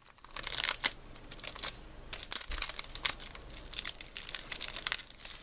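Plastic packaging crinkling as it is handled and opened, with a run of irregular small crackles and rustles.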